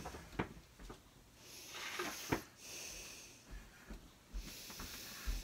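Soft breathing close to the microphone, in several hissy breaths, with a few light clicks.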